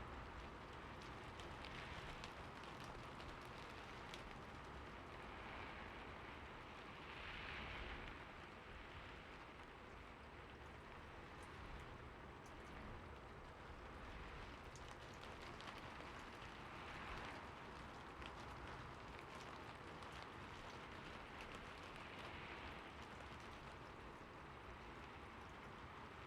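Soft, steady rain with scattered drops ticking, swelling gently every few seconds.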